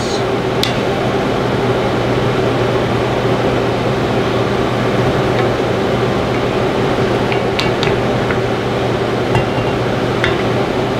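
Hedgehog mushrooms simmering in water and butter in a cast-iron skillet, stirred with a wooden spatula that scrapes and taps the pan a few times, over a steady low hum.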